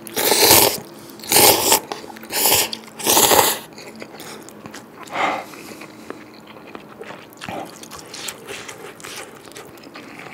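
A person slurping beef noodle soup noodles from a paper cup: four loud slurps in the first few seconds and a shorter one about five seconds in, then softer chewing.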